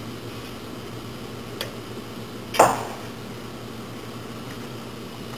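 A steady low hum of running shop equipment, with a light click and then, about two and a half seconds in, one sharp metallic clank that rings briefly.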